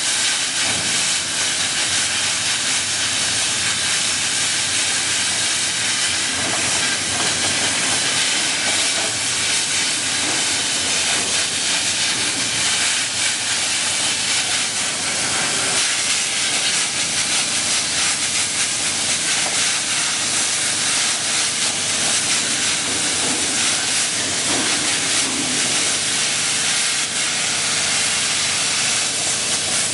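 Hypertherm-powered CNC plasma torch cutting sheet metal: the arc and its compressed-air jet give a steady, loud hiss.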